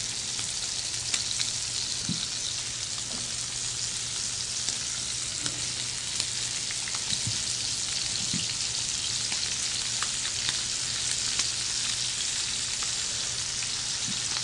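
Scallops searing in a little very hot oil in a sauté pan: a steady sizzle with scattered small crackles as the tops turn golden brown.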